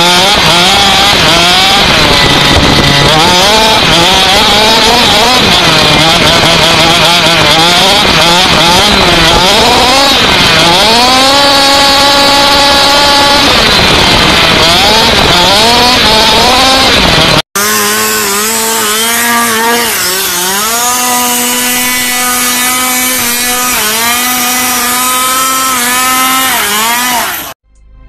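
Radio-controlled buggy's small two-stroke engine, heard from a camera mounted on the car, revving up and down repeatedly as it drives, under a constant rushing noise. After an abrupt cut about two-thirds of the way in, the engine is heard again, clearer, still revving up and down, and it cuts off just before the end.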